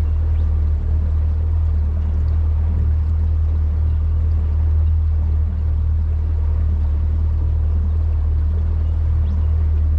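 Mercury outboard motor pushing a boat along at cruising speed, a steady low drone that does not change, with water noise from the hull under it.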